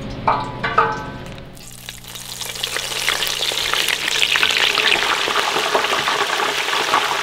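Breaded perch fillets going into hot oil in an electric deep fryer. After a couple of short clinks from the wire basket, the oil starts crackling and bubbling about two seconds in and builds to a steady, loud sizzle.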